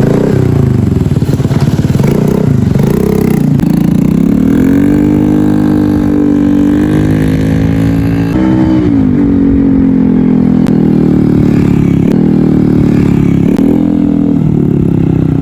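Motorcycle with an SC Project aftermarket exhaust, silencer insert fitted, riding off and accelerating. The engine note climbs and holds, drops sharply about eight seconds in, climbs again, then falls back near the end.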